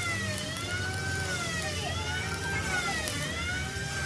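A siren wailing, its pitch sweeping up and down about once a second, over a steady low rumble.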